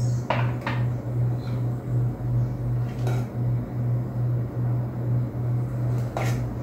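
Metal ladle scraping and clinking against a saucepan and glass ramekins as thick pudding is ladled out: a couple of scrapes just after the start, one about three seconds in and one near the end. Under it runs a loud, steady low hum that pulses about twice a second.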